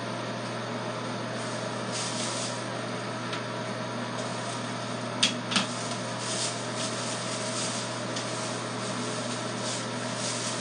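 Steady mechanical hum and hiss of room background, with two sharp clicks about five seconds in.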